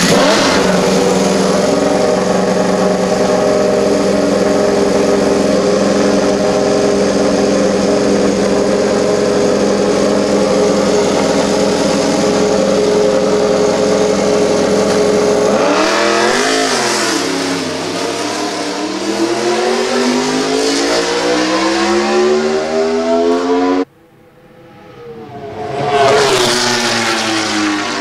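Suzuki MotoGP prototype's inline-four racing engine running at a steady fast idle. About halfway through it is blipped and then revved, its pitch climbing as the bike pulls away. After a sudden cut, the bike goes past at speed, its pitch rising then falling.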